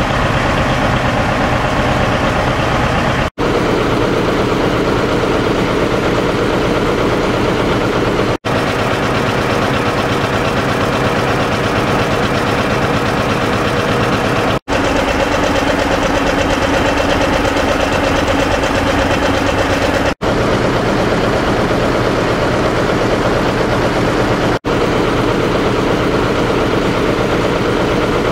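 John Deere 820 two-cylinder diesel tractor engine idling steadily, with a few very short breaks in the sound.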